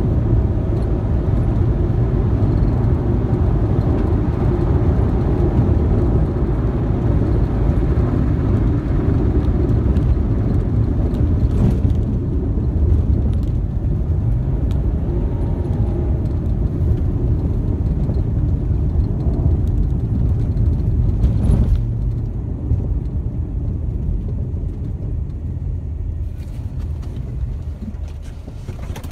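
Ford Mustang driving on a dirt road: a steady, heavy low rumble of engine, tyres and wind noise that drops about two-thirds of the way through and keeps fading as the car slows.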